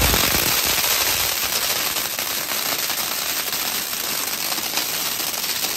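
Multi-jet ground fountain firework spraying sparks with a steady hiss and dense crackling, slowly dying down.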